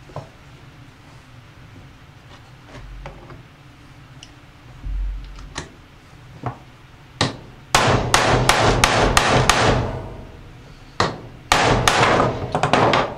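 Hammer blows on a bearing driver, seating a new bearing into a Polaris Outlaw aluminium rear carrier hub. After a few seconds of small handling clicks, the strikes come about seven seconds in: a fast run of blows, a short pause, then another run near the end.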